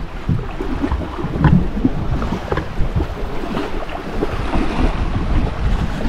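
Wind buffeting the microphone over water sloshing around a small boat at sea, a steady low rumbling noise with many short irregular sounds through it.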